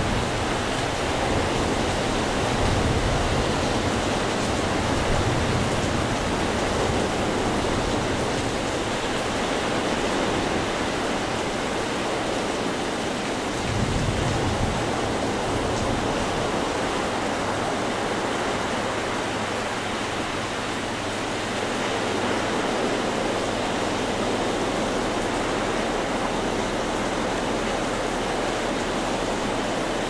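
Heavy storm surf breaking on a beach, a steady wash of noise, with a brief low rumble about fourteen seconds in.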